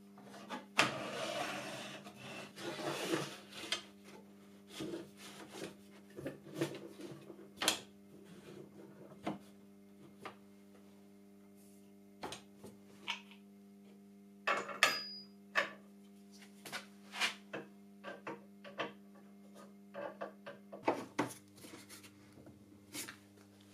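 Miter fence of a homemade sliding table saw being slid along its rail and set against an angle gauge. A rubbing slide comes about one to three seconds in, followed by scattered clicks and knocks of handling. A steady low hum runs underneath.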